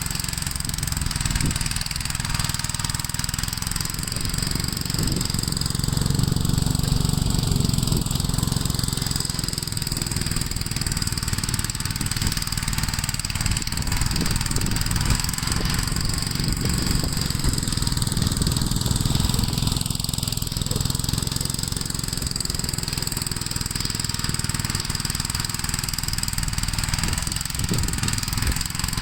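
Gravely L8 walk-behind tractor's single-cylinder engine running steadily while plowing snow, its sound growing louder and then easing a couple of times.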